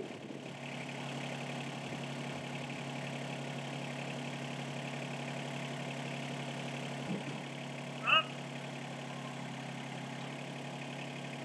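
Yanmar tractor's diesel engine running steadily. A brief, loud voice-like call comes about eight seconds in.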